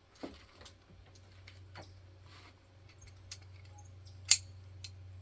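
Scattered small clicks and ticks of an Allen key working a loose screw on a crossbow's front stirrup mount, one sharper click near the end, over a faint steady low hum.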